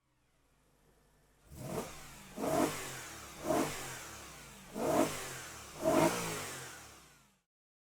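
BMW E92 M3's S65 V8 revved in five quick throttle blips, each rising sharply and falling back toward idle, after a faint idle at the start. The sound cuts off abruptly near the end.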